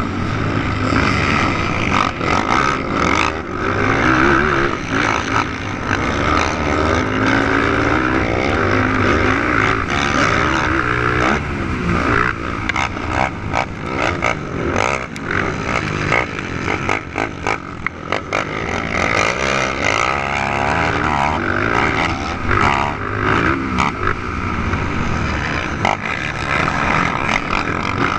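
450-class racing quads running on a motocross track, their engines revving up and down continuously as they accelerate and back off.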